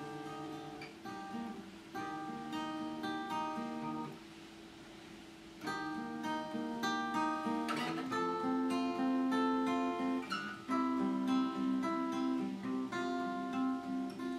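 Solo acoustic guitar playing an instrumental introduction, a steady run of plucked notes that ring on. It goes softer for a moment about four seconds in, then comes back fuller and louder.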